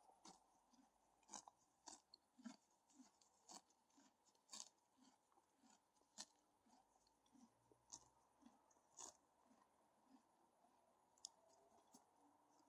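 Horse grazing: grass being bitten off and chewed, a faint run of short crisp crunches about one or two a second, thinning out in the last few seconds.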